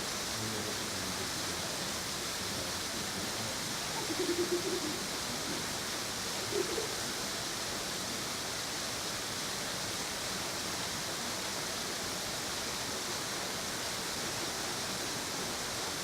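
Steady rushing noise of water falling at a waterfall, with two short faint pitched sounds, one about four seconds in and another about six and a half seconds in.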